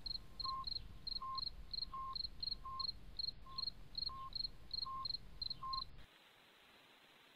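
Rhythmic electronic beeping in two pitches, quick high chirps interleaved with slower lower beeps over a low rumble, cutting off abruptly about six seconds in.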